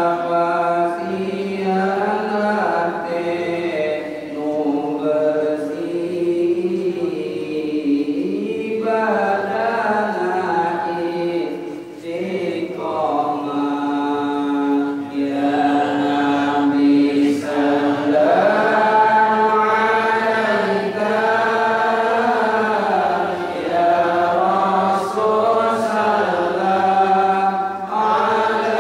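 Men's voices chanting a slow, melodic devotional recitation, with long held notes and short breaks for breath.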